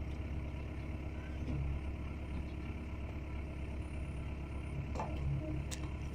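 A vehicle engine idling steadily with a low, even drone.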